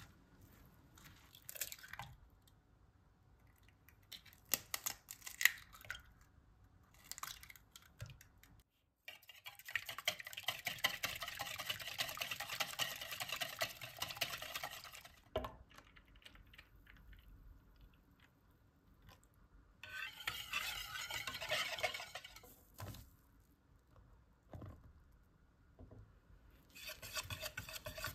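A metal spoon scraping and clinking in a glass bowl as grated zucchini and diced tomato are stirred together, with scattered clicks. After a short break, a wire whisk beats eggs fast against the side of a bowl: a dense, rapid clatter for several seconds. Shorter bouts of whisking follow as a flour batter is mixed.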